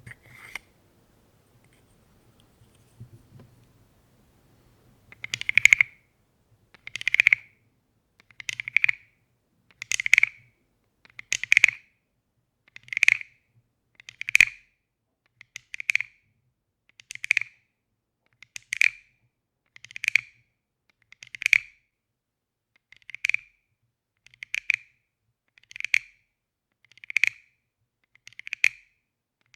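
Wooden frog percussion toy croaking: a stick drawn over its ridged back gives short rasping croaks, about one every second and a half, seventeen in all, after a couple of faint taps at the start.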